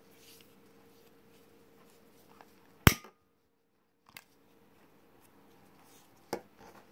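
Scissors snipping satin ribbon: three sharp single snips, the loudest about three seconds in and a quieter one about a second later, over a faint steady hum.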